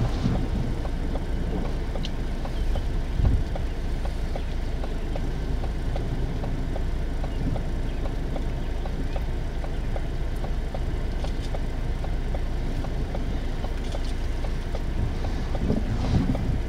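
Steady low rumble of thunderstorm wind, with light scattered tapping, typical of rain, through it.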